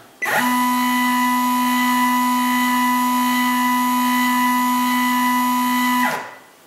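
Stepper motor driving a Sherline rotary table round to its next division: a rather loud, steady whine of several tones. It rises in pitch as the motor speeds up just after the start, holds for about six seconds, then falls away as the motor slows and stops.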